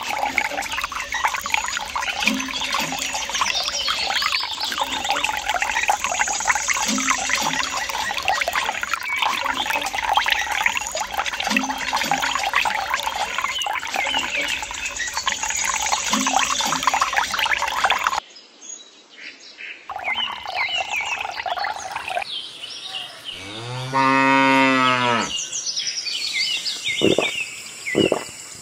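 A cow mooing once, a long low call about three-quarters of the way through and the loudest sound. Before it, a dense hiss dotted with many short chirps that cuts off abruptly; a few sharp clicks follow the moo.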